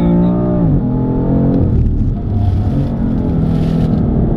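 BMW M4's twin-turbo straight-six heard from inside the cabin, pulling at high revs. Its pitch drops sharply under a second in, then climbs again near the end.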